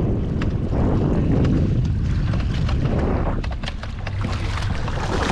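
Wind buffeting the microphone on a boat, a heavy low rumble, with a cluster of short sharp sounds between about three and five seconds in.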